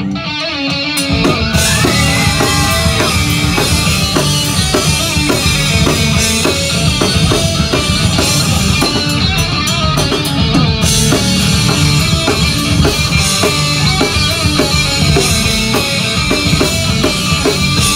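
Live rock band playing loud: full drum kit and electric guitars, with the sound thinning for a moment right at the start before the full band carries on.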